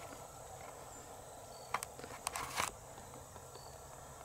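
A few rustling footsteps in dry leaves and grass about two seconds in, over faint outdoor quiet. A short high chirp repeats faintly about every two seconds.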